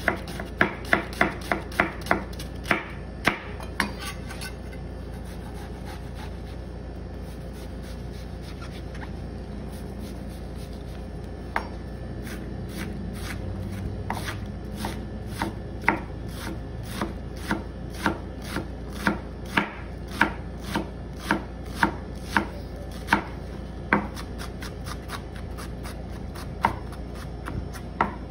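Chef's knife chopping an onion on a plastic cutting board: quick, even knocks of the blade on the board. The chopping pauses about four seconds in, then resumes about twelve seconds in and keeps a steady pace of two to three strikes a second.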